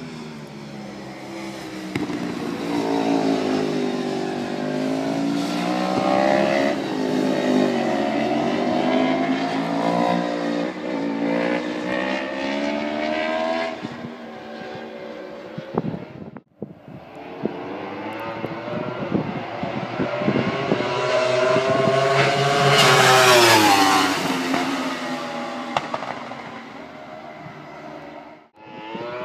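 Yamaha YZF-R1 superbikes' inline-four engines running hard around the circuit, the engine note rising and falling with throttle and gear changes. The sound drops out briefly at a cut about halfway through. A bike then comes closer and is loudest about three-quarters of the way in, its note climbing and then falling away as it passes.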